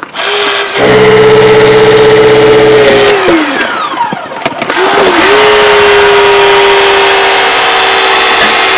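Battery-powered Hurst eDraulic 3 hydraulic rescue tool running its motor and pump with a loud steady whine. The pitch sags about three seconds in as the tool loads up against the car's metal, and the whine drops out briefly. It starts again after about five seconds and holds steady.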